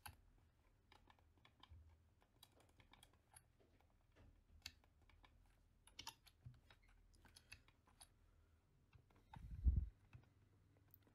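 Faint, scattered clicks of a computer keyboard and mouse, a few a second at irregular intervals, with a soft low thump about nine and a half seconds in.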